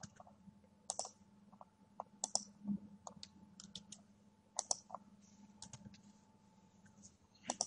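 Scattered, irregular computer keyboard keystrokes and mouse clicks, faint, as code is selected, pasted and typed, over a faint steady low hum.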